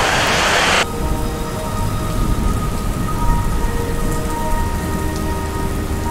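Rain falling steadily. It is a heavy, loud hiss that drops off abruptly under a second in to lighter rain over a low rumble.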